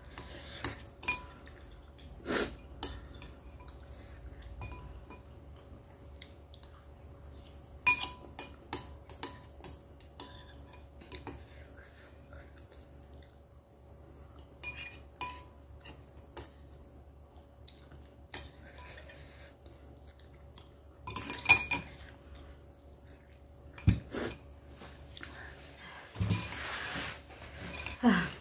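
Metal spoon and chopsticks clinking and scraping against a bowl while someone eats noodles, as scattered light taps with a busier cluster about three-quarters of the way through. A short burst of noise comes near the end.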